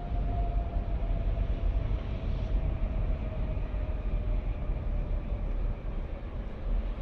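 City street traffic rumbling, with wind buffeting the microphone. A faint vehicle whine falls slowly in pitch.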